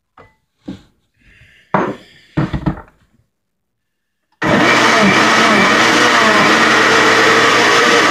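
A few short knocks and clicks, then about halfway through a countertop blender's motor switches on abruptly and runs steadily at full speed, blending crumbled tofu with water and soy sauce.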